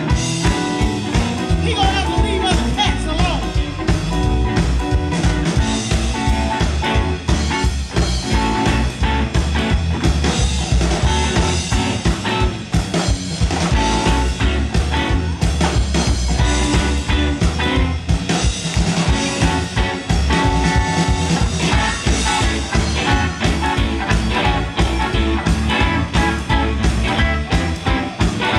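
Live electric blues band playing: two electric guitars over drums on a steady beat. A woman sings at the start, then the electric guitars carry the tune while she lowers her microphone.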